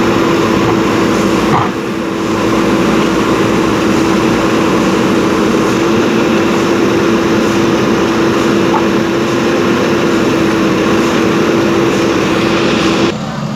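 JCB backhoe loader's diesel engine running steadily, with a steady whine over the engine noise. The sound dips briefly a little under two seconds in and changes abruptly near the end.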